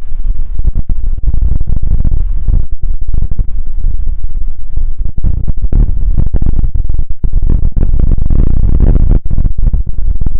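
Wind buffeting the microphone in a heavy, loud rumble that keeps cutting in and out, drowning out whatever else is there.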